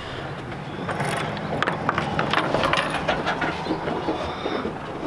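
A hinged wooden window panel on a barn being lifted open by hand. Its hanging chain rattles and the wood scrapes and knocks in a run of quick clicks and rattles that starts about a second in and dies away after a few seconds.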